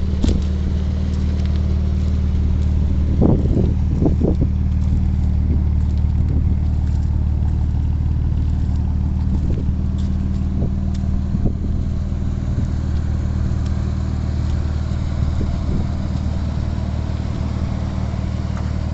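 Car engine idling with a steady low hum. A few short thumps come about three to four seconds in.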